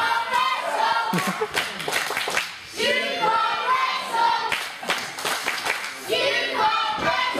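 Wrestling crowd chanting in unison, a short chant repeated about every three seconds, with clapping between the chants.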